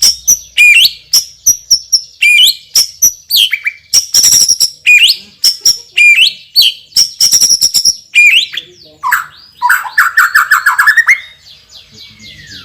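White-rumped shama (murai batu) singing loudly: a rapid run of sharp clicking notes and quick rising whistles repeated over and over, with a fast, lower trill near the end, a song filled with mimicked phrases.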